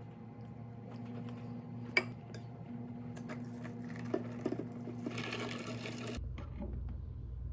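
A steady low mechanical hum, with a sharp click about two seconds in and a few light taps around four seconds. A short hiss follows and stops abruptly about six seconds in.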